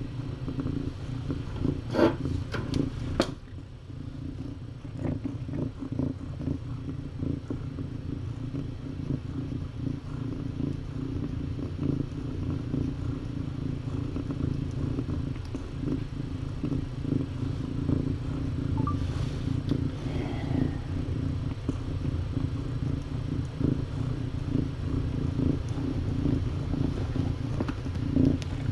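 Cat purring steadily and close, a continuous low rumble, with a few sharp clicks about two and three seconds in.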